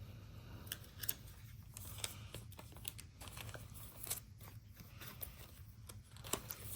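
Trading cards being handled and flipped through, giving faint scattered clicks and light rustles over a low steady hum.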